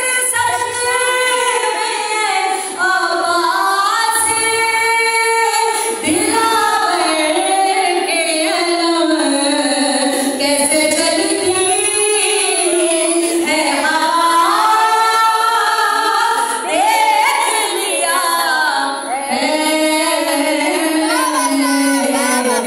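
A woman singing a devotional poem solo into a microphone, unaccompanied, in long melodic phrases that rise and fall.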